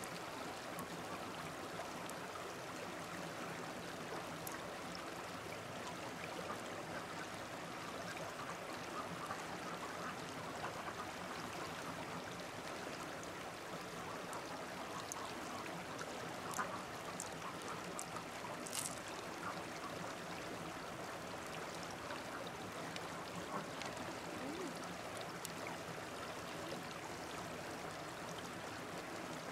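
Shallow stream running steadily over rocks, with a few small clicks and taps scattered through it; the sharpest comes about sixteen and a half seconds in.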